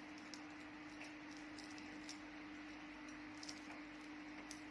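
Faint, scattered small clicks and taps of people eating at the table, such as chopsticks, bowls and chewing, over a steady low hum.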